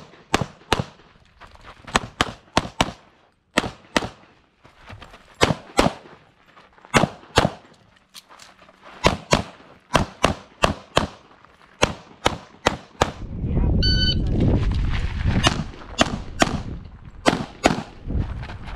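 CZ Tactical Sport pistol fired in rapid strings, mostly quick pairs of shots, with short gaps between strings while the shooter moves. From about two-thirds of the way in, a loud low rumbling noise runs under the shots.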